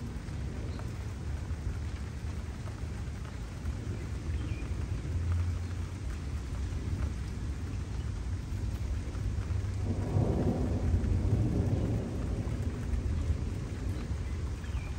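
Thunder rumbling over steady rain, with a louder roll of thunder about ten seconds in that lasts a couple of seconds.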